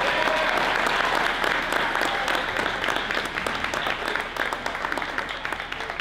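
A room full of guests applauding, with a few cheers and voices mixed in near the start; the clapping thins out toward the end.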